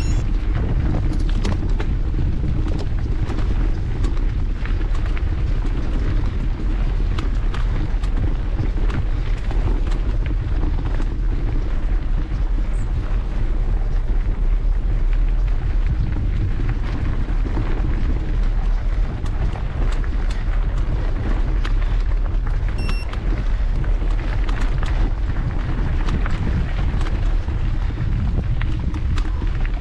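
Wind buffeting the microphone while a mountain bike rolls over a rough, stony dirt track, with frequent clicks and rattles from the tyres and bike going over loose stones. A brief electronic beep sounds about three-quarters of the way through.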